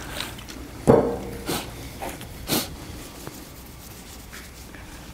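Paper towel wet with adhesive remover rubbing over a car's painted decklid to lift 3M tape residue. A few short sharp sounds come in the first three seconds, the loudest about a second in, before the wiping settles into a quieter rubbing.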